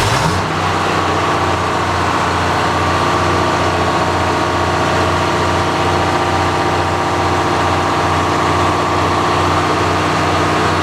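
The sawmill's engine catches and runs steadily at a fast idle after cranking on a weak battery.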